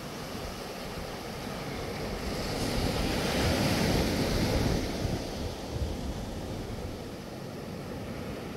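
Small waves breaking and washing up the beach, a wash that swells about two seconds in and eases off after about five seconds, with some wind on the microphone.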